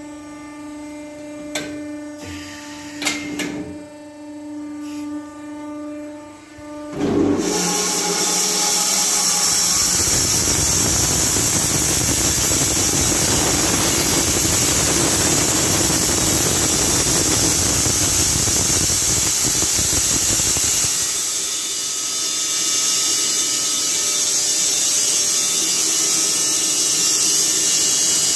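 Carpathian SMFA 100 horizontal bandsaw mill with its 18 kW electric main motor: first a steady hum with a few clicks, then about seven seconds in the band blade enters the log and a loud sawing noise with a high hiss takes over, easing a little about two-thirds of the way through.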